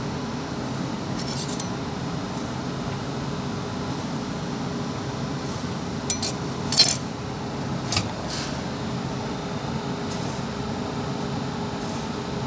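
Steel angle iron and metal clamps being handled, giving a few light metallic clinks and knocks, the loudest about seven seconds in, over a steady low hum.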